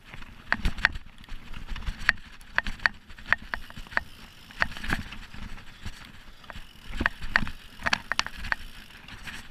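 Mountain bike ridden over a rough dirt trail: irregular sharp clicks and rattles from the bike, over a low rumble of the tyres on the ground.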